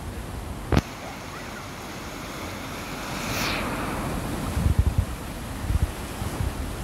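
Floodwater rushing over a ford while a Toyota pickup truck ploughs through it, its bow wave surging and splashing, with a swoosh about halfway through as the wave sweeps past. Wind buffets the microphone with low thumps in the second half, and there is one sharp knock just under a second in.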